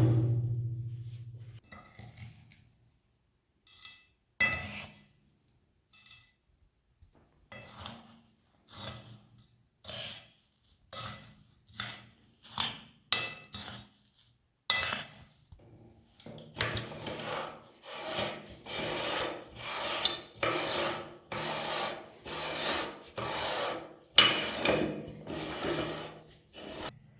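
Meat grinder crushing chocolate candy bars: rasping, scraping strokes, scattered at first, then coming steadily about twice a second from about halfway through.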